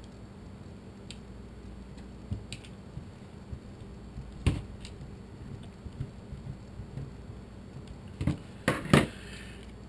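Scattered small clicks and taps of a screwdriver and plastic parts as a Thermacell mosquito repeller's plastic housing is handled and screwed back together, with a few louder knocks about halfway and near the end, over a steady low hum.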